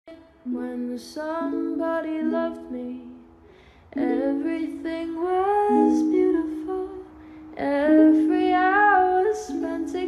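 Music: a singing voice over a plucked-string accompaniment.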